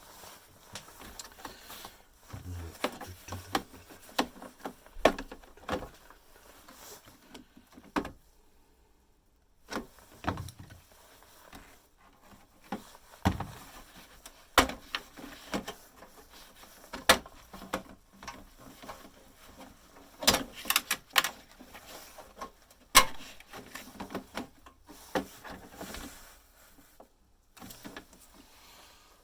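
A bread maker being pulled apart by hand for scrap: irregular clicks, knocks and clatter of its casing and parts being prised and handled, with several sharper knocks scattered through.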